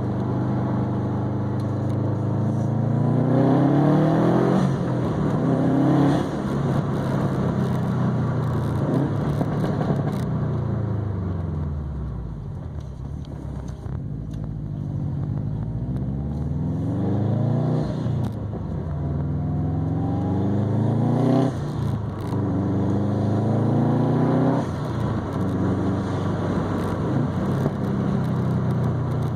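2020 Subaru STI's turbocharged flat-four engine breathing through a non-resonated ETS catback exhaust and a Grimmspeed catted downpipe. It pulls up through the gears, rising in pitch and dropping sharply at each of several upshifts. In the middle it eases off and winds down, then settles to steady cruising near the end.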